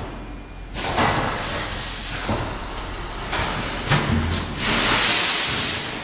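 Baopack VP105 vertical form-fill-seal packing machine with linear-scale weigher running through its bagging cycle: a steady low hum with sudden bursts of hiss, a knock, and a longer loud hiss near the end.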